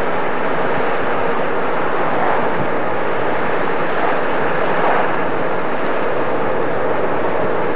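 Steady road noise inside a moving car's cabin: tyres on the road and the engine's low hum, unchanging throughout.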